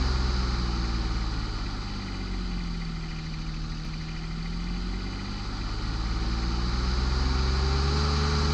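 An engine running steadily, its speed easing down over a couple of seconds and then climbing back up to where it started.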